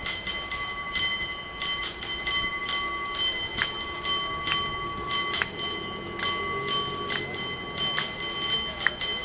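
A cable car bell struck over and over in a fast, syncopated rhythm, its ringing tone carrying on between the clustered strokes.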